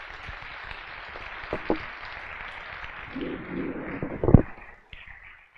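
Audience applauding, fading out near the end, with a few sharp knocks, the loudest about four seconds in.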